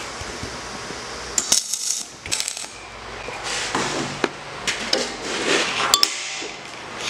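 Loose steel parts clinking and clanking against each other in irregular bursts, with rustling between them: hardened cutting teeth handled against a steel reamer body.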